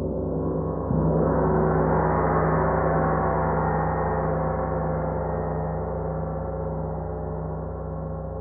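32-inch spiral gong struck about a second in over its still-sounding deep hum. Its upper overtones swell for a couple of seconds and then slowly die away while the low tone keeps ringing.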